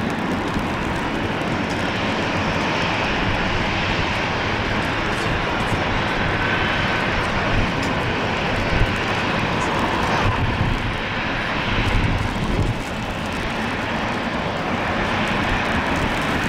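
Boeing 777-300ER's twin GE90 jet engines running steadily at taxi power as the airliner taxis in after landing.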